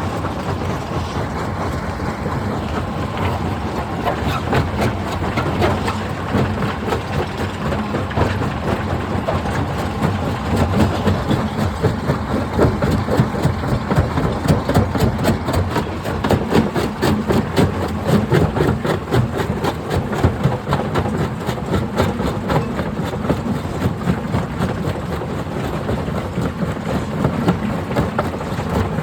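Rock crusher running under load: a steady, loud engine-and-machinery drone with a constant rapid clatter and cracking of rocks being broken.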